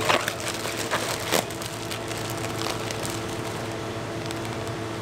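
Plastic fish-shipping bags crinkling as they are handled, with a few sharp crackles in the first second and a half, over a steady low hum.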